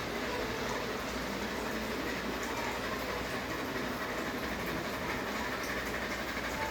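Ceiling fan running: a steady whirring rush with faint, irregular light ticks.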